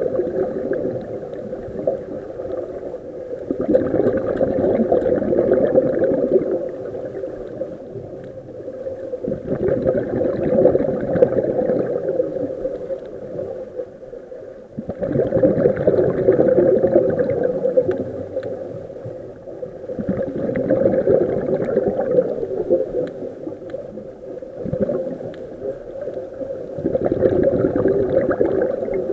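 Scuba regulator exhalations heard underwater: a burst of bubbling comes every five to six seconds and lasts about three seconds, over a steady low hum.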